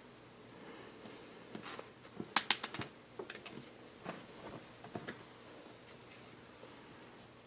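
Small plastic Lego Technic pieces being handled and pegs pushed into place: a quick run of light clicks about two and a half seconds in, then a few scattered clicks.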